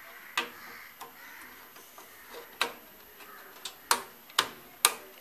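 Sharp plastic clicks and taps as a DDR3 RAM stick is pushed into a motherboard memory slot and its retaining clips snap shut. There are several separate clicks, the loudest three close together near the end.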